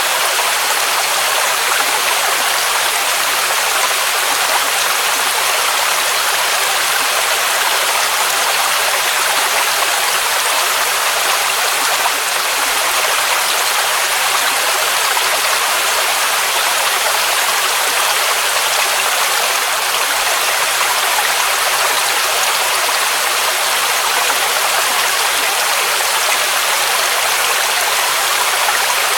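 Waterfall rushing in a steady, unbroken hiss, with most of its sound high and little low rumble.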